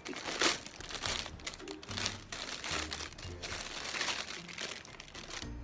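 Plastic packaging bag crinkling and rustling as a handbag is pulled out of it, in irregular crackly bursts.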